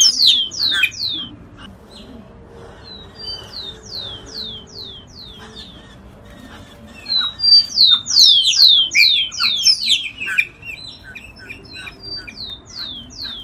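Giant cowbird (iraúna-grande) singing: fast runs of high, downward-slurred whistles in repeated bouts, the loudest near the start and again about halfway through, where the run is mixed with lower chattering notes.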